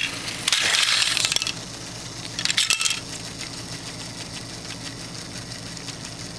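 Plastic Lego bricks clattering and scattering as a Lego train smashes into a Lego car and horse trailer: a burst of rattling about half a second in, then a second, shorter clatter near three seconds.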